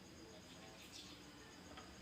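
Near silence: faint room tone with a thin steady high whine and a few soft, short ticks.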